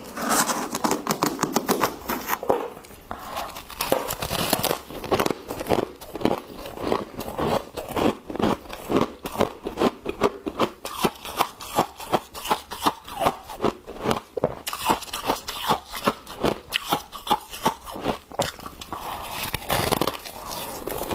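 Frost built up from a humidifier being scooped and scraped: a quick, even run of crunchy scrapes, about two to three a second.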